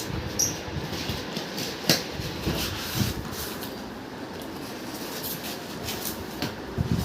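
Scattered knocks, clicks and rustling as a new TV and its packaging are handled during unboxing, with sharper knocks about two and three seconds in.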